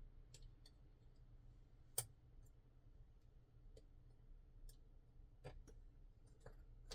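Near silence with a few faint, scattered clicks of small metal knife parts being handled during reassembly, the sharpest about two seconds in.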